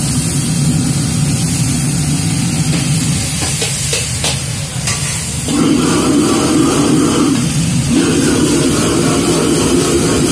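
Gas wok burner running with a steady rumble and hiss under a sizzling wok, with a few sharp metal ladle knocks about four seconds in. The sound grows louder from about five and a half seconds in, when beef and onions are being stir-fried over flaring flames.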